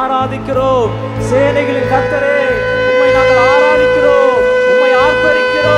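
Shofar (ram's horn) blown into a microphone. A short call bends up and falls away, then one long held blast runs from about a second and a half in until near the end, with shorter bending calls sounding over it.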